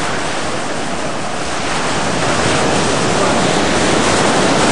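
Ocean surf washing up onto a sandy beach: a steady rushing hiss of small breaking waves that swells a little toward the end.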